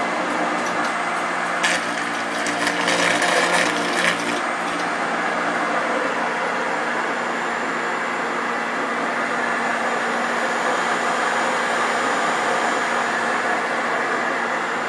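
LABINS Vortex disperser's electric motor running steadily, its stainless shafts churning CMC and water into foam. A patch of clicking and rattling comes about two to four seconds in.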